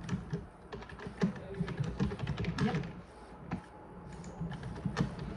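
Irregular light clicks and taps, some close together and some spaced apart.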